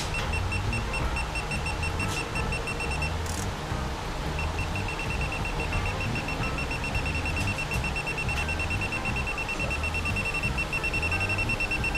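Digital torque wrench beeping, a fast even series of short high beeps as it is pulled toward its 20 N·m setting on a diesel fuel-injector bolt. The beeping pauses for about a second some three seconds in, then resumes.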